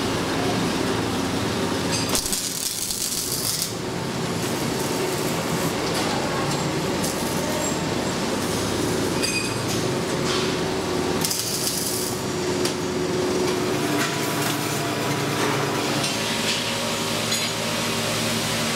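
Steady workshop machine drone, with two short bursts of hissing, about two seconds in and again about eleven seconds in, from arc welding the joints of steel motorcycle handlebars.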